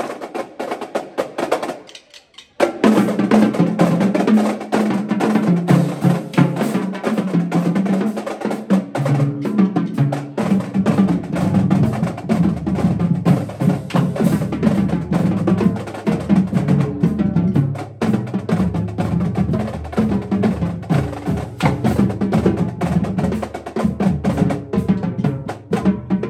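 Marching drumline playing a cadence on Pearl snare drums, a five-drum tenor set and bass drums: rapid stick strokes, rolls and pitched tenor and bass drum tones. It breaks off briefly about two seconds in, then resumes loud, and a deeper bass drum part joins about ten seconds in.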